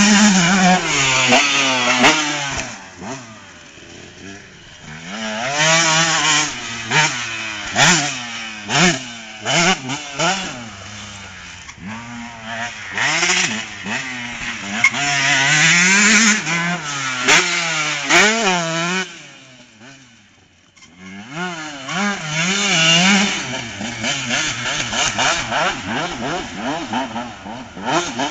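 KTM 144 SX single-cylinder two-stroke motocross bike ridden hard around a dirt track, its engine note climbing and dropping again and again as it revs through the gears and backs off. It grows loud and fades several times as the bike comes near and goes away, almost dying out about twenty seconds in before returning.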